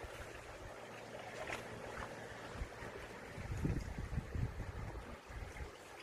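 Small sea waves washing and lapping against concrete tetrapods and rocks: a steady rush of water, with a few louder low surges a little past the middle.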